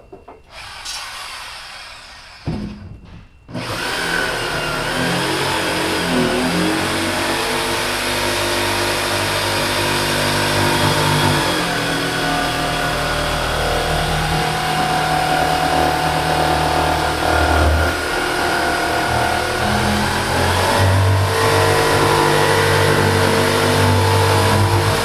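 Corded electric jigsaw cutting into the top of a barrel. A short burst comes about a second in, then the saw runs continuously from about three and a half seconds in, its pitch shifting as the load changes.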